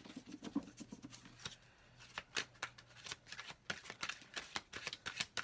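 Oracle tarot cards being shuffled and handled in the hands: many irregular soft clicks and flicks of card edges.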